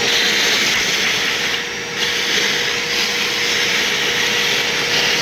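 Harbor Freight wet/dry shop vacuum running steadily with a hum, its hose nozzle sucking up pooled oily way lube from a CNC mill's way tray; the sound dips briefly just under two seconds in.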